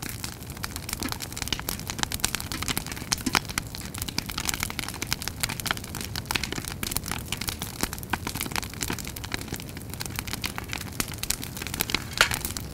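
A fire crackling and popping over a steady low rumble of burning, with sparks snapping irregularly and one sharper pop near the end.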